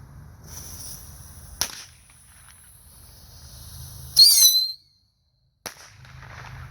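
Small firecrackers going off: a lit fuse hissing, a sharp crack about a second and a half in, then a much louder firecracker bang with a high crackle just after four seconds. The sound then drops out for a moment and a single click follows.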